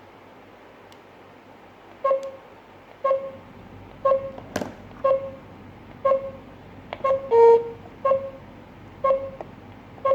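GSM alarm system panel beeping: short, even beeps about once a second, starting about two seconds in. There is a sharp click about halfway through, and a longer, louder and slightly lower beep a little after it.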